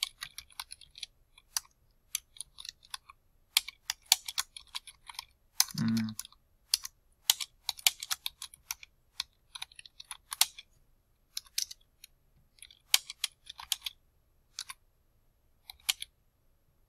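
Typing on a computer keyboard: irregular bursts of quick keystroke clicks with short pauses between words.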